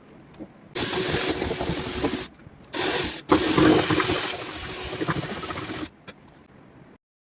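Abrasive rubbing on wood, like sanding or rasping, in three long continuous runs, the last about two and a half seconds, each stopping abruptly.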